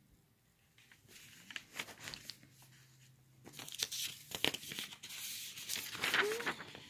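Sheets of loose-leaf notebook paper rustling and crinkling as they are handled and shuffled, louder in the second half.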